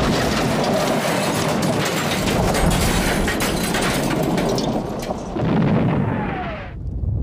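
Explosion: a loud boom that goes on as a long, noisy rumble full of crackles, with a falling whistle near the end before it cuts off suddenly.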